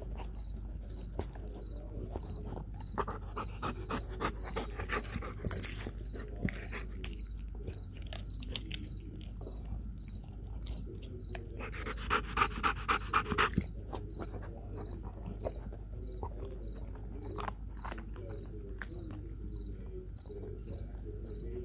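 Belgian Malinois chewing and tearing at a raw whole chicken, with scattered sharp crunches and clicks. About halfway through, a short burst of rapid panting is the loudest sound; the dog is winded from a workout.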